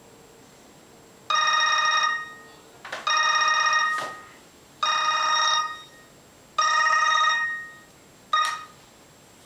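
Mobile phone ringtone ringing four times, each ring about a second long and repeating roughly every 1.8 s, then a fifth ring cut short.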